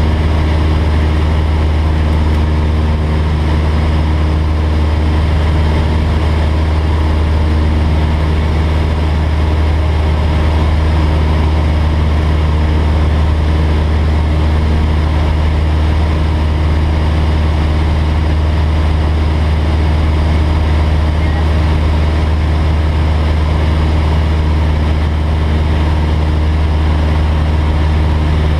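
Single-engine light aircraft's piston engine and propeller running steadily in level flight, a constant low drone heard from inside the cockpit.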